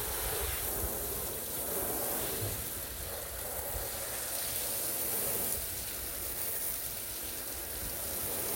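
Garden-hose spray nozzle hissing steadily as its spray spatters onto the boat's gel-coated fibreglass deck, rinsing off deck cleaner.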